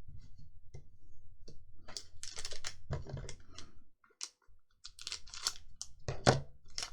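Pokémon trading cards being handled and flipped through by hand: a run of quick, dry clicks and card-on-card flicks, with a short pause a little after four seconds in.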